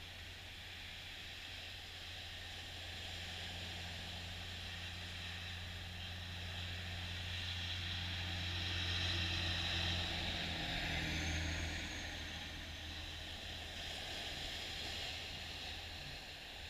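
Small waves breaking and washing up a sandy beach: a steady hiss of surf that swells and eases, loudest around the middle. A low steady hum runs underneath and weakens in the latter part.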